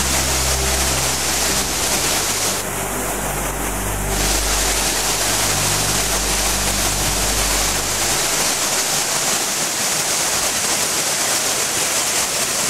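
Mountain waterfall cascading down a rock face: a loud, steady rush of falling water.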